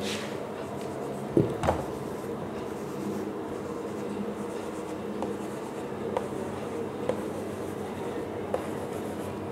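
Marker pen writing on a whiteboard, with a few short ticks of the tip on the board, over a steady low hum. Two louder knocks come about a second and a half in.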